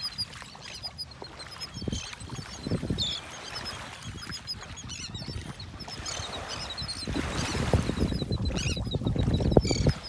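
A resting flock of terns and gulls calling: many short, high calls overlapping throughout. A low rumbling noise underneath grows louder over the last few seconds.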